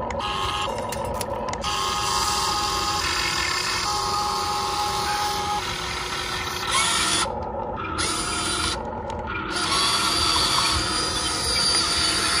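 Small electric motors and plastic gearboxes of a radio-controlled dump truck whining as it runs. The whine shifts in pitch several times and briefly drops out a few times.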